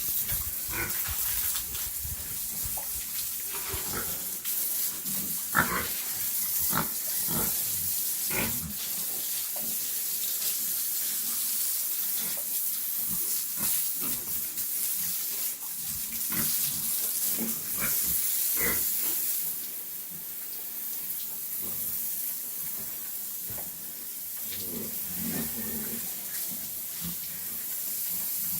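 Pigs calling in short grunts and squeals scattered through, over a steady high hiss.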